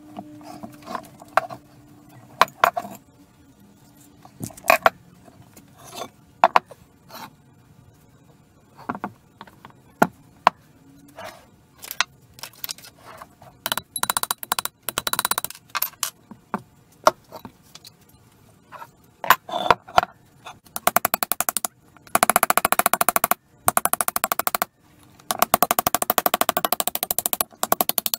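Cast-iron bench vise being taken apart: scattered sharp metal knocks and clanks as parts are handled and a hammer taps a pin punch, then fast runs of close-spaced knocks over the last several seconds.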